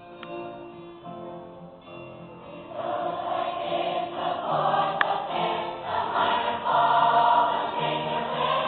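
Middle school choir singing held notes, growing louder about three seconds in, then stopping abruptly.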